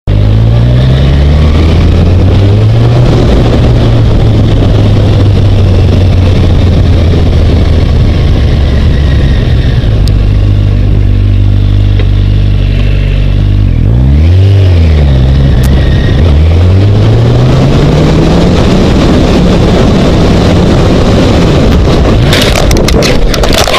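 Motorcycle engine running under way, its pitch briefly rising and dropping about two-thirds of the way in, then climbing steadily as it accelerates. Near the end, a cluster of sharp knocks as the motorcycle hits the side of a car.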